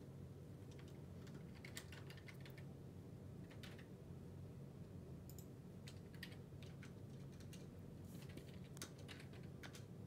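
Faint, irregular sharp clicks, some in small clusters, over a steady low hum.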